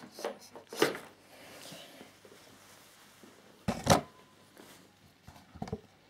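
A few scattered handling knocks and rustles. The loudest, a deep thump, comes about four seconds in.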